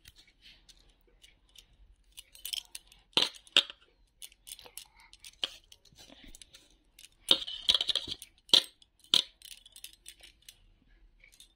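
Soaked rice being mixed by hand in a steel bowl: grains rustling and squishing, with irregular clicks and clinks against the bowl. The loudest clicks come about three seconds in and in a cluster over the last third.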